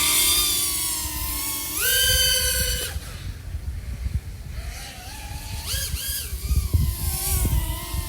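Motors and propellers of an iFlight AOS 3.5 V5 FPV quadcopter (XING 1504 3100KV motors) whining in flight. The pitch jumps sharply up with a throttle punch about two seconds in, drops back a second later, and rises again near six seconds. A rough low rumble runs under the whine in the second half.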